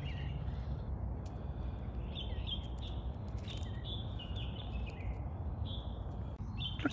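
Birds chirping: a quick series of short, high chirps, clustered between about two and five seconds in, over a steady low background rumble.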